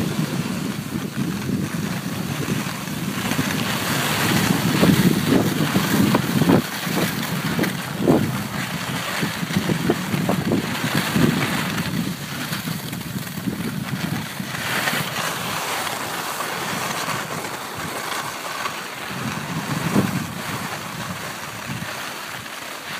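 Wind buffeting the microphone of a camera carried by a moving skier, with the hiss of skis sliding over snow; the rushing rises and falls in gusts and eases off near the end.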